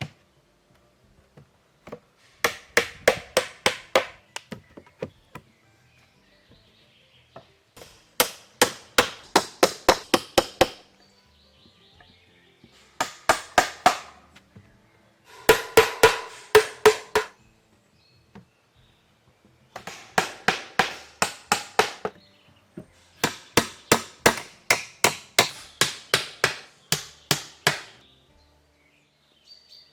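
Hand hammering: quick blows at about four a second, in six bursts of two to three seconds with short pauses between, some strikes ringing briefly.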